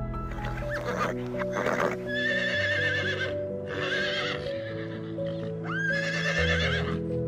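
A horse whinnying three times, each call about a second long with a quavering, wavering pitch, over steady background music. A few short sharp knocks come just before the first whinny.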